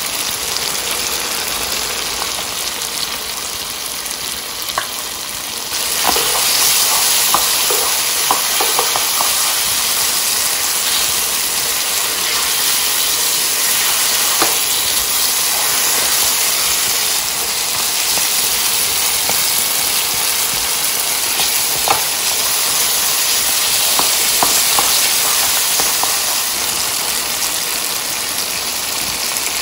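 Mutton pieces frying hard in a karahi: a steady sizzle that gets louder about six seconds in. A spatula scrapes and knocks against the pan now and then as the meat is stirred. This is the bhuna stage, the meat being fried dry with yogurt.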